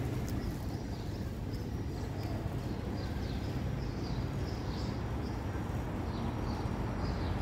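Steady low outdoor rumble, with faint short high chirps scattered through it.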